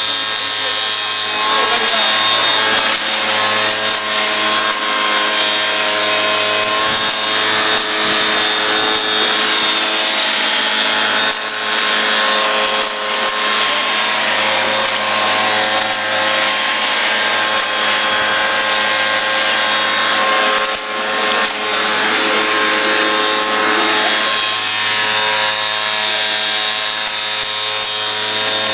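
Backpack cotton picker's small engine running steadily at constant speed, driving the picking wand as it works through the cotton plants.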